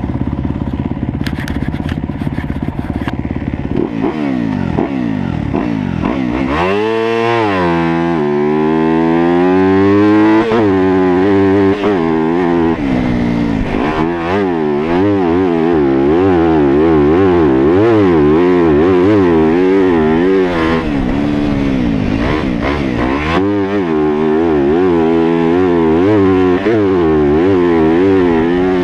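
Yamaha YZ250F's 250 cc four-stroke single-cylinder engine revving hard on a motocross track, its pitch climbing and dropping again and again as the rider accelerates, shifts and backs off, heard from an onboard camera. For the first few seconds a rushing noise with some clatter covers the engine.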